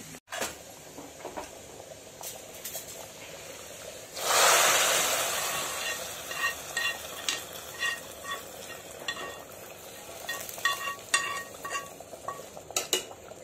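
Tadka of hot oil and fried onions poured into a pot of mutton dal gosht: a sudden loud sizzle about four seconds in that fades away over a few seconds. Then light metallic clinks and scrapes of a spoon against the frying pan as it is scraped out.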